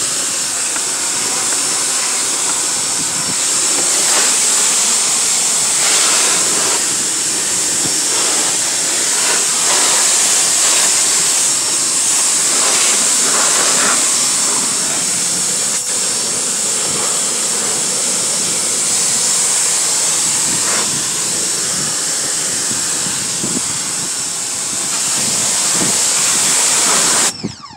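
Pressure washer spraying a steady jet of water onto the rusty sheet metal of a car's door jamb and sill, the splash changing as the jet moves over the surfaces; the spray cuts off suddenly near the end.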